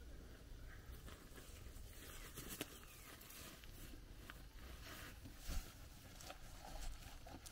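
Dry hay rustling and crackling as a small square bale is carried and pushed onto a stack, with a soft thud about five and a half seconds in as it is set down.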